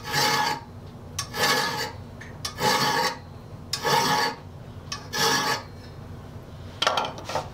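A hand saw file stroking across the steel teeth of a pruning saw to sharpen them: five even filing strokes about a second and a quarter apart, then two shorter, quicker strokes near the end.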